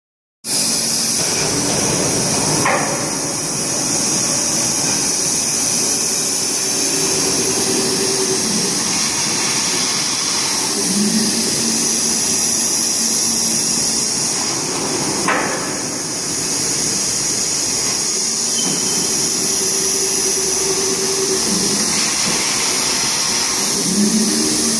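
Horizontal gantry CNC V-grooving machine cutting grooves into a stainless steel plate: a steady loud scraping hiss from the cutter. A sharp clack comes twice, about twelve seconds apart, and a low motor hum comes in twice.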